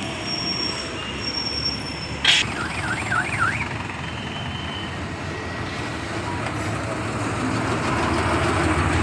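Road traffic passing close by: trucks and cars going past on the road. About two seconds in a sharp hiss is followed by a brief warbling siren-like horn, rising and falling about four times, and a heavy truck's engine grows louder near the end.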